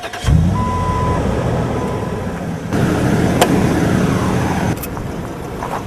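Jeep engine coming in suddenly about a quarter second in and then running, louder for a couple of seconds in the middle, with a short steady electronic chime near the start.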